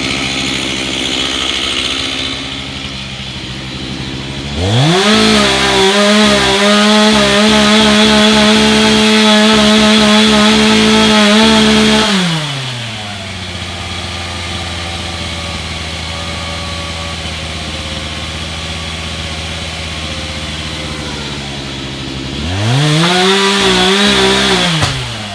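Gas chainsaw idling, then revved up to full throttle about four seconds in and held for some seven seconds, its pitch wavering as it cuts into the tree. It drops back to idle, then revs up again briefly near the end.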